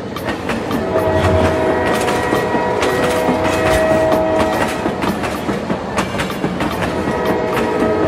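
Battery-powered toy steam locomotive running along plastic track: a steady mechanical whirr of its small motor and gears with rapid fine clicking from the wheels on the track.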